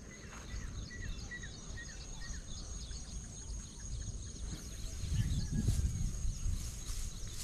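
Outdoor ambience by a river: a bird chirping in a quick run of short falling notes during the first few seconds, over a steady high thin whine and a low rumble that swells about five seconds in.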